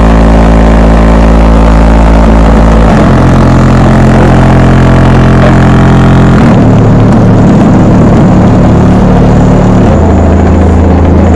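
Heavy hip-hop bass from two 10-inch MTX Jackhammer subwoofers driven by a Jackhammer JH600 amplifier, heard from outside the car and deliberately distorted in editing to avoid a copyright claim. Long, loud low notes hold steady and change pitch about every three and a half seconds.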